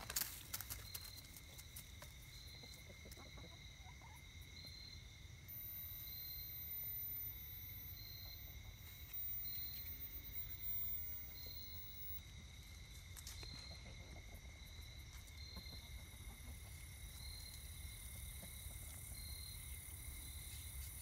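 Faint, steady insect chorus: a high continuous trill with one note that swells about once a second. In the first second, a short flurry of wing flaps as a Buff Orpington rooster flies down off a raised bed.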